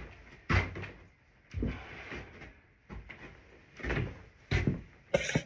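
Wooden knocks and clunks, about half a dozen spaced irregularly, from boards and tools being handled and set down on a wooden workbench.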